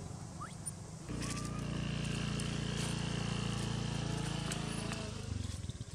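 A motor vehicle engine running steadily with a low hum, cutting in about a second in and dropping away near the end. A short high squeak sounds once as it starts.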